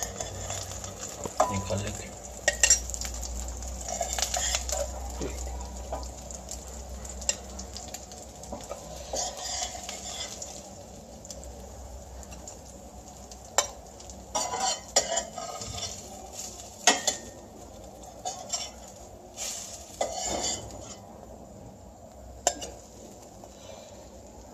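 Chicken shami kababs shallow-frying in oil in a stainless steel pan, sizzling steadily, with scattered sharp clinks and scrapes of a metal spoon against the pan as the kababs are turned and lifted out.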